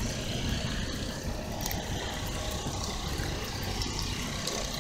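Steady outdoor rumble of wind on the microphone mixed with parking-lot traffic, with a few faint clicks.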